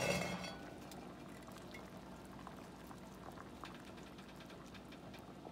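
Beans boiling in water in an enameled cast-iron pot on medium heat: a faint, steady bubbling with many small pops. A brief, louder noise comes at the very start and fades within about half a second.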